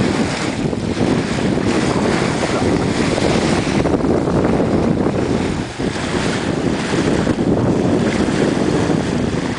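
Strong wind buffeting the microphone in gusts over the rush of water along the hull of a wooden sailing whaleboat under way.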